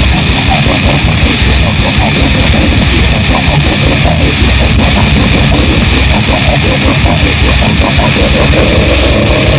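Loud, dense, distorted heavy metal or noise music with a rapid pounding low end.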